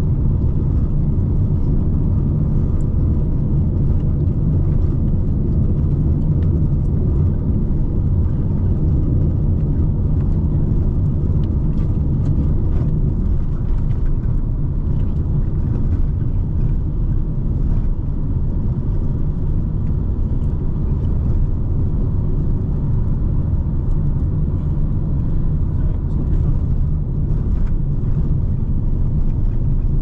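Steady low rumble of a car on the move: engine and road noise.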